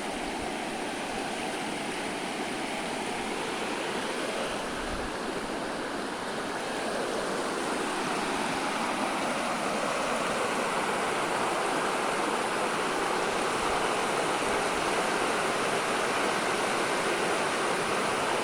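Waterfall water rushing and splashing over rocks in a steady roar, growing somewhat louder about halfway through.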